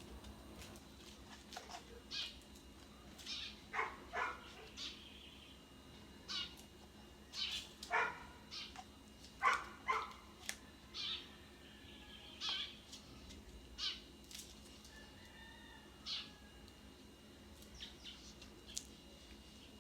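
An animal's short cries, many of them at irregular intervals, some in quick pairs, over a faint steady hum.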